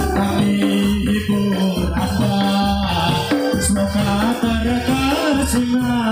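Music for an angguk folk dance: a held, stepping melody over drum strokes and rattling, jingling percussion.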